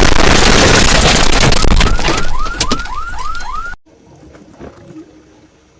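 A loud, distorted explosion blast sound effect. Rising alarm-like whoops, about three a second, start in its second half, and it cuts off suddenly about four seconds in, leaving only faint background.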